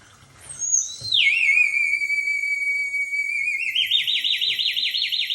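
An alarm-like whistle: a clear tone slides down in pitch and holds steady, then about three and a half seconds in breaks into a fast, regular up-and-down warble.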